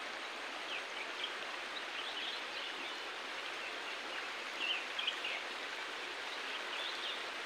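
Birds chirping now and then over a steady rushing hiss of outdoor background noise.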